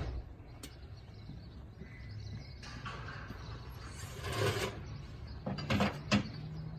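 A fire truck's equipment compartment being opened: a rattling, sliding sound for about two seconds, then a few sharp metal clanks as forcible-entry tools are pulled out. A low steady hum runs underneath.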